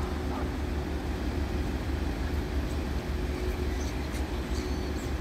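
Steady low rumble of a diesel train engine running, with a faint dog bark just after the start.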